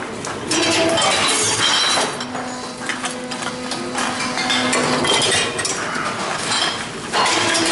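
Glass bottles clinking against each other while being fed into a Tomra reverse vending machine, with a steady hum for a few seconds in the middle.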